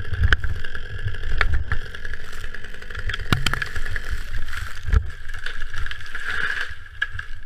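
A chainsaw idling steadily, under heavy rumbling movement noise on the microphone, with crunching in snow and a few sharp knocks.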